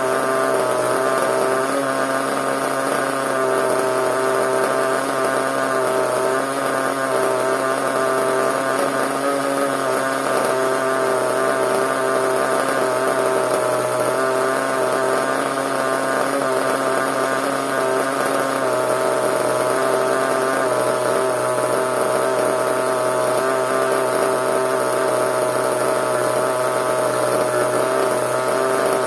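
Small nitro (glow-fuel) engine of a CEN radio-controlled monster truck running steadily at a constant high pitch, with only slight wavers in speed.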